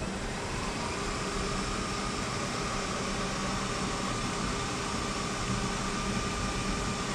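CNC milling machine with its spindle running and the end mill cutting an aluminium block: a steady machine noise and hum, with a steady whine that comes in about a second in.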